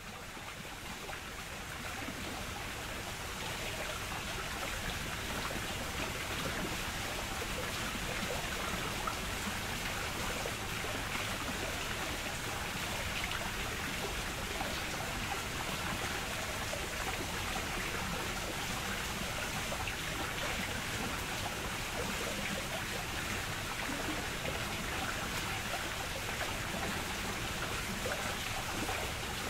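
Steady rush of water running and splashing at a garden water wheel, fading in over the first few seconds and then holding even.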